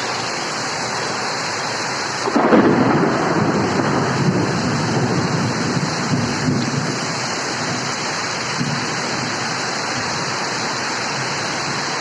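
Heavy rain falling steadily, with a loud clap of thunder a little over two seconds in that rumbles on and fades over the next few seconds.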